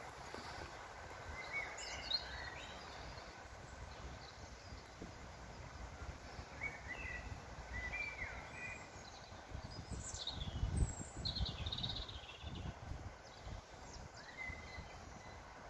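Quiet outdoor ambience with small birds chirping and calling on and off, short high notes scattered through, and a brief low rumble about ten seconds in.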